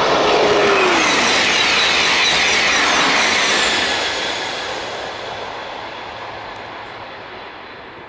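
SNCF TGV Réseau high-speed trainset 4530 passing close by: a loud rushing that holds for the first three seconds or so, with a brief falling tone just as it goes by, then fades steadily as the train draws away.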